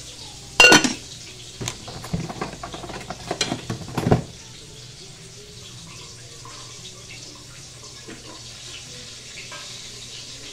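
Pots, pans and utensils clattering: a sharp metallic clank about half a second in, then a run of clinks and knocks ending with a louder knock about four seconds in. After that only a faint steady hiss remains.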